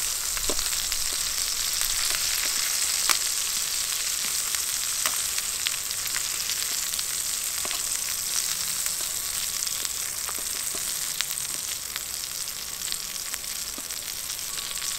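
Bacon sizzling steadily in a small metal camp pot as it is stirred with a spoon, with scattered sharp clicks and crackles. It is being fried until well done.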